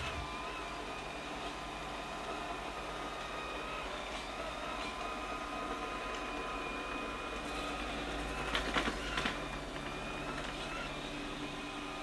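LG Hom-Bot robot vacuum running, a steady motor and fan hum with a faint whine, broken by a brief clatter of clicks about two-thirds of the way through.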